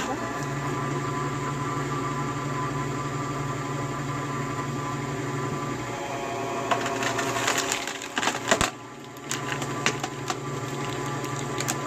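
A machine runs with a steady hum while firewood is split: about two-thirds of the way through comes a flurry of cracks and knocks of wood giving way, ending in one sharp crack, after which the hum carries on.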